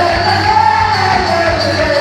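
Loud music playing for a quadrilha junina dance, a gliding melody line over a steady, even beat.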